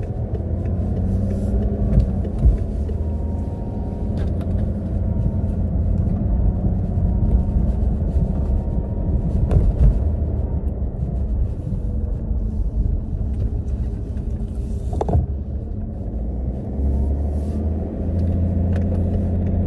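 Car cabin noise while driving: a steady engine and road rumble, with a faint engine hum drifting slowly in pitch. There is a single sharp click about fifteen seconds in.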